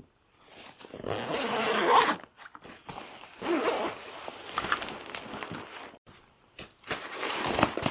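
A backpack's zipper being pulled open in three rasping stretches, with the rustle of the pack's fabric and the gear inside being moved.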